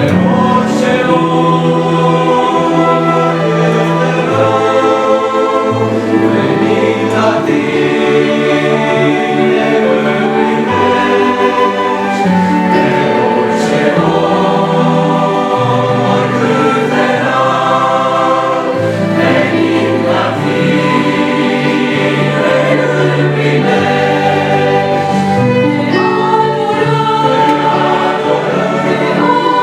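Choir singing Christian worship music over instrumental accompaniment with a steady bass line.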